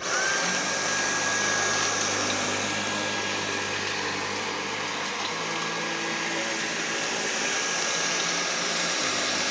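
Dyson V8 Animal Extra cordless stick vacuum switching on at its maximum suction setting. Its motor whine climbs to pitch in the first moment, then holds steady as a high whine over the rush of air.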